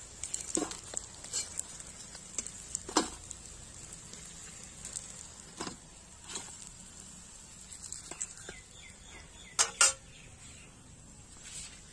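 Flat metal spatula scraping and clinking against a metal kadhai and steel plates while fried prawn fritters are lifted out: a scattering of separate knocks and scrapes, the loudest a quick double knock near the end.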